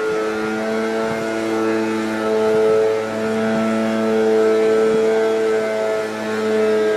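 Background music of sustained held notes, the melody moving in steps every second or so over a steady low tone.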